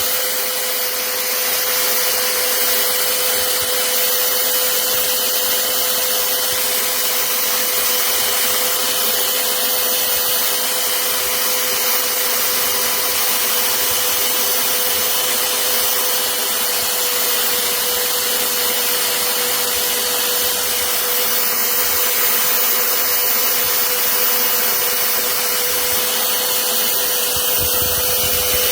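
VEVOR portable corded band saw's electric motor running steadily at full speed, a constant whine over a dense hiss.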